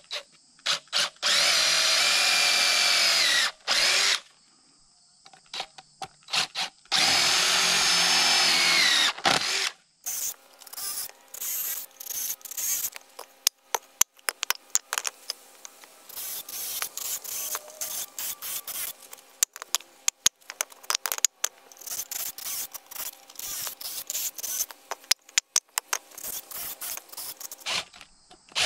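Cordless drill boring pilot holes through 4x4 wooden corner braces in two runs of about three seconds each. After that come many short wooden knocks and clatters as the boards are handled and stacked.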